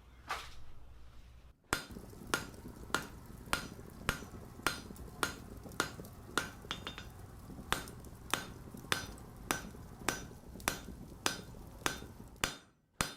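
Evenly spaced hammer blows on metal, a little under two a second, each with a slight ring. They stop abruptly near the end.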